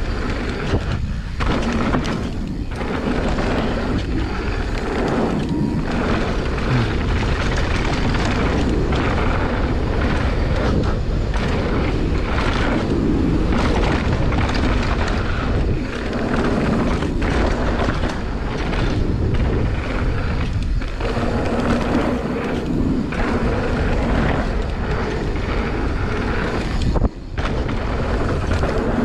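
Mountain bike tyres rolling fast over packed dirt with wind on the GoPro microphone: a loud, steady rumble with short dips every few seconds and a brief sharp drop near the end.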